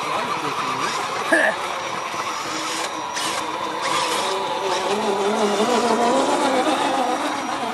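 Electric motors and gear drives of radio-controlled scale crawler trucks whining as they drive through a muddy puddle, the pitch rising and falling with the throttle.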